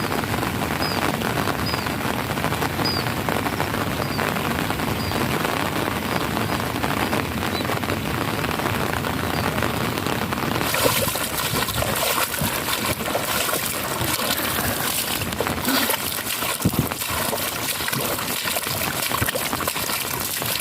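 Heavy rain falling, with water pouring and trickling as it runs off. About ten seconds in, the rain turns brighter and hissier.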